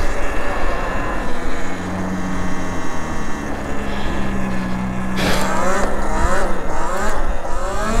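Electric motor whine of a Talaria Sting e-moto under throttle, over wind and tyre rumble. About five seconds in the throttle is pulsed, giving a quick run of short rising whines.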